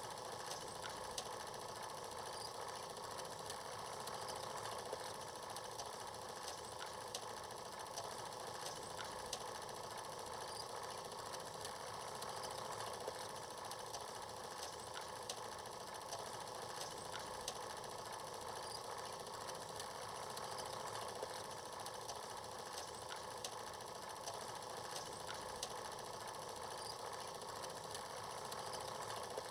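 Film projector running with a steady mechanical whirr and clatter, over scattered crackling clicks from the old film.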